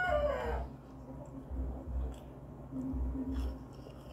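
A rooster's crow ends in the first half-second, its held note falling away. Then there are faint sounds of people eating at a table: soft low thumps every second or so and a few light clicks.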